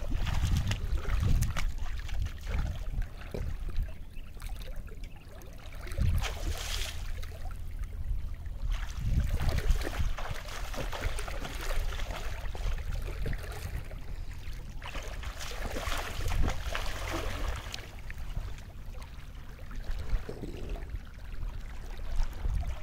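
Shallow water splashing and sloshing around a person's legs as he wades, in irregular swells, over a steady low rumble.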